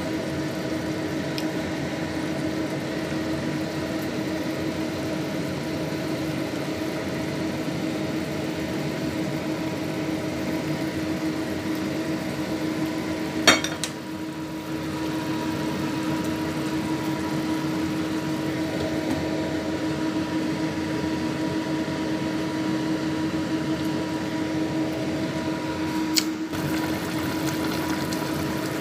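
A pot of broth simmering on an electric stovetop under a steady appliance hum. A sharp click comes about halfway and another near the end.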